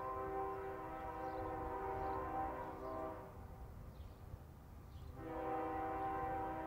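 Freight locomotive's multi-chime air horn sounding two long blasts, the first ending about three seconds in and the second starting about two seconds later, over a steady low rumble.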